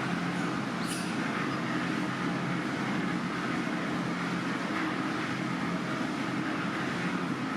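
Steady background noise like distant traffic or a running machine, with a faint brief high sweep about a second in.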